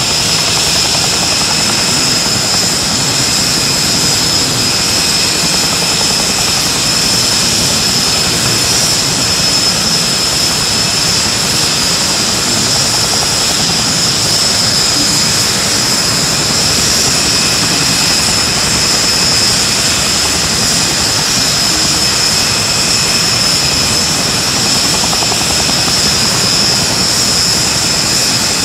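Aircraft engine running steadily, with a constant high-pitched whine over a broad rush of engine noise.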